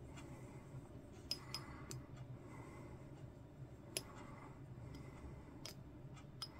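Faint, scattered light clicks of a brush tapping and scraping against the inside of a small glass jar while stirring oil paint into enamel thinner to make a wash.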